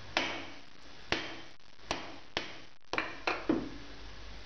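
Steel clamping hardware knocking and clinking against the vise and machine table as a hold-down clamp is set in place: about eight sharp metal knocks at uneven spacing, each ringing briefly, bunched together near the end.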